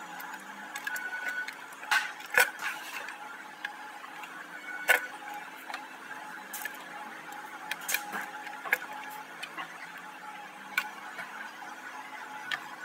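Hands working a rubber hose and its clamp loose at a plastic engine intake manifold: scattered small clicks, taps and knocks of plastic and metal, with a few sharper knocks, over a faint steady hum.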